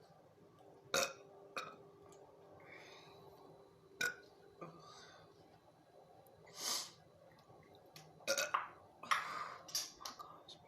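A person burping: several short, separate burps, then a quick run of them close together near the end, with breathing between.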